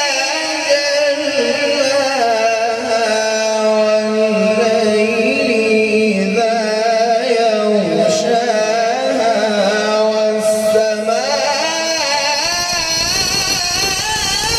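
A man's voice reciting the Quran in the melodic tajweed style of tilawat, holding long, wavering, ornamented notes. A low rumble joins under the voice near the end.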